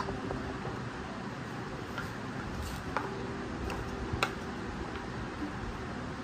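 A few light clicks and taps of a metal measuring cup handled over a stainless steel mixing bowl, the clearest about four seconds in, over a steady low background hum.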